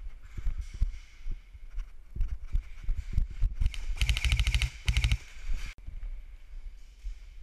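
Two rapid bursts of shots from a game gun about four seconds in, the second shorter, with a steady low hum under them. Before them come scattered low knocks.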